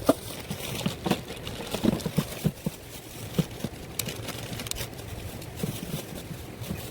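Scattered light knocks and crackles at an irregular pace, with a sharp click just after the start and another about four seconds in.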